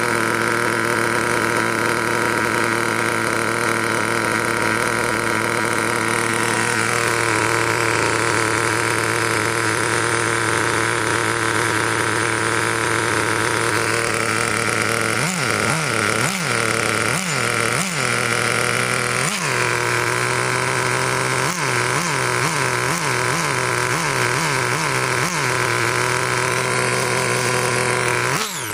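Traxxas TRX 2.5 two-stroke nitro engine in a T-Maxx RC truck, idling steadily, then given a series of short throttle blips in the second half. The second-hand replacement engine runs smoothly and idles evenly.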